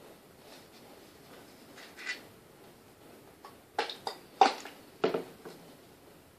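Handling noises from a bottle and a tissue: a few short rustles and taps, most of them clustered between about four and five and a half seconds in.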